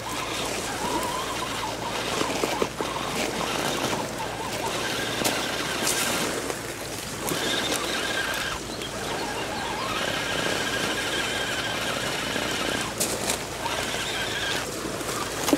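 Electric motor and gearbox of a radio-controlled Axial scale crawler whining as it climbs a steep dirt slope. The whine rises and falls in stretches with the throttle, over scraping and rustling of tyres and chassis on dirt and grass.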